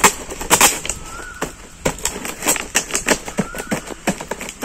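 Empty plastic water bottles crackling and clicking as they are handled and bound together with cellotape: a string of sharp, irregular clicks.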